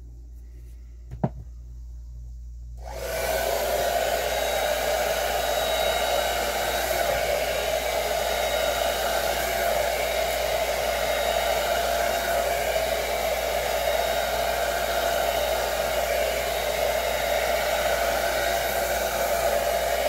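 Jinri 1875 W ionic hair dryer switched on about three seconds in, then running steadily while blowing on hair: a loud, even rush of air carrying a steady motor tone.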